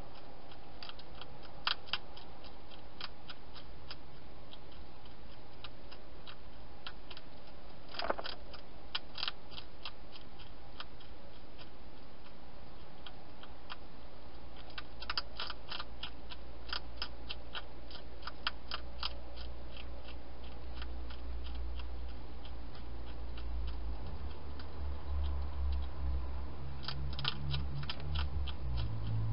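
Wild hedgehog crunching dry food inside a plastic feeding box, in several runs of sharp clicks over a steady hiss. A low hum rises near the end.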